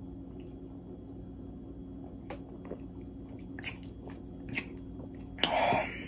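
A person gulping ginger ale from a can: a few soft swallowing clicks spread out, then a short breathy sound near the end as the drinking stops.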